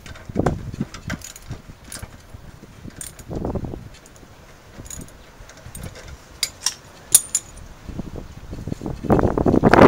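Scattered light metal clicks and clinks of small hardware and hand tools being handled, with a louder rustling rumble setting in near the end.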